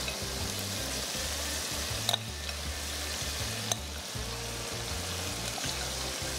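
Marinated chicken pieces frying in a shallow layer of oil in a nonstick pan: a steady sizzle. Two sharp clicks come about two seconds and three and a half seconds in.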